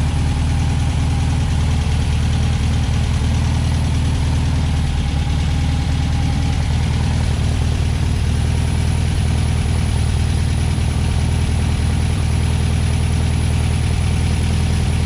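1963 Volkswagen Beetle's air-cooled flat-four engine idling steadily.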